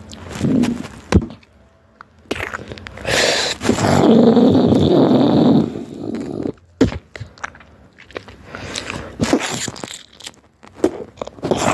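Cartoon sound effects of crunching and scraping: sharp clicks, a loud noisy rush from about two and a half to six seconds in, then a string of scattered clicks and short crackles.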